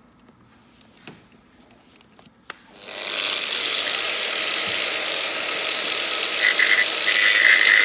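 A few light clicks, then about three seconds in a small grinder starts and runs loud and steady, cutting a slot into an anti-theft bolt head. A high, steady whine joins near the end.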